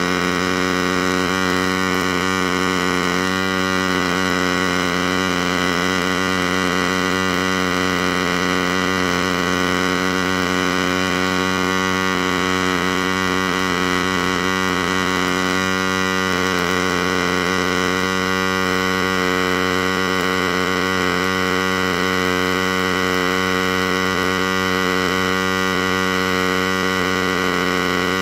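MIG welding arc on a DIY CNC welding rig, laying one continuous bead: a steady electric buzz with hum that holds even and unbroken.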